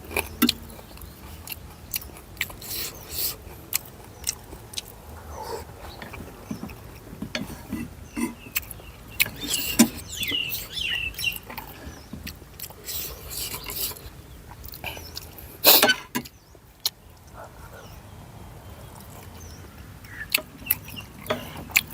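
Close-up eating sounds: instant noodles being chewed and slurped, with scattered sharp clicks of utensils and one louder knock about three quarters through.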